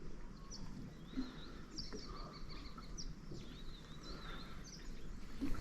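Birds calling with a run of short, high chirping notes over faint outdoor background noise.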